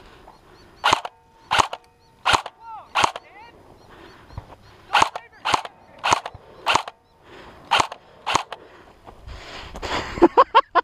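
Airsoft rifle firing single shots on semi-auto: about ten sharp cracks in three quick strings, roughly one every 0.6 seconds.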